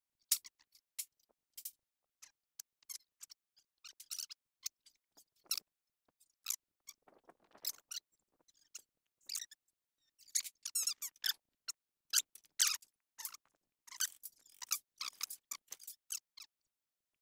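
Short, scattered squeaks, clicks and clinks of hands in gloves handling metal brake parts on a workbench, coming thicker in the second half.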